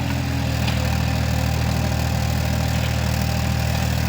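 Excavator's diesel engine running steadily at low revs.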